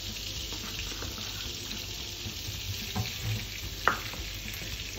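Chopped garlic sizzling steadily in melted vegetable-fat spread in a hot nonstick pan, stirred with a wooden spoon. A sharp knock a little before the end as the wooden spoon is set down against the pan.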